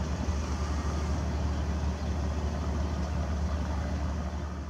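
A steady low rumble like an idling engine, with an even hiss over it.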